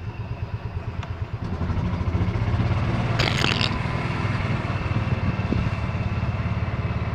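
Small motorized cart humming as it is driven across wet pavement, a steady low hum that grows louder about a second and a half in as it picks up speed. A brief hiss comes about three seconds in.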